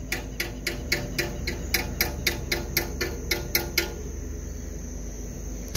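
Rapid, even mechanical clicking, about four clicks a second, that stops just before four seconds in, over a steady low hum.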